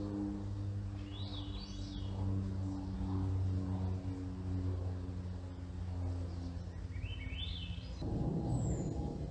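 A steady low engine drone with several held tones, slowly fading, under a songbird that sings two short rising trills, one about a second in and one near the end. About eight seconds in, a rougher, louder low rumble of another engine begins.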